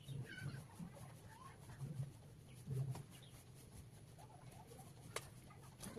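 Faint bird chirps, with a single sharp click about five seconds in.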